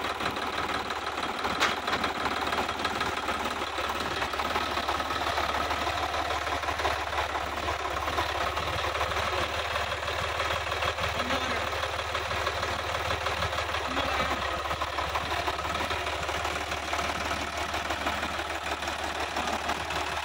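Sonalika 50 RX Supreme tractor's diesel engine running steadily, with its bonnet off, on a test run after a head gasket replacement.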